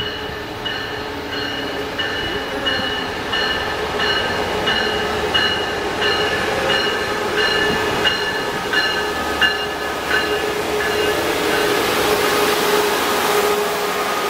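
Pacific Surfliner passenger train arriving, its Siemens Charger diesel locomotive running with a steady hum. A bell rings evenly about one and a half times a second and stops near the end. A rushing noise grows as the bilevel cars roll past.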